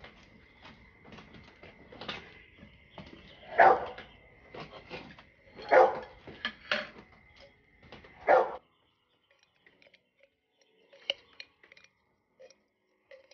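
A dog barking: about four loud, sharp barks with smaller ones between, stopping suddenly about eight and a half seconds in.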